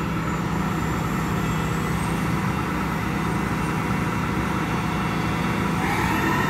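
A work truck's engine running steadily at the job site, its pitch stepping up near the end as the revs rise.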